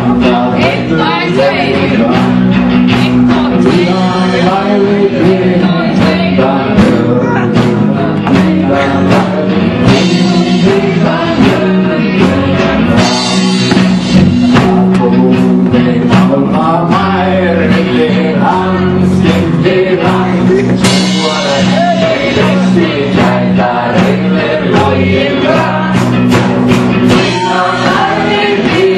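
A live folk-rock band plays a traditional Icelandic vikivaki ring-dance song with male singing over sustained low instrumental notes and a steady beat.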